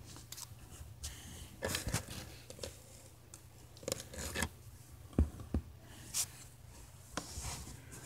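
Handling noise: irregular scratchy rustling and scraping of cloth, with a few soft knocks in the middle.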